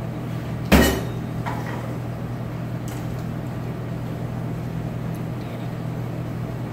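Commercial range's oven door shut with one loud metal bang about a second in, followed by a few light clinks of a pan on the stovetop, over the steady hum of the kitchen exhaust hood.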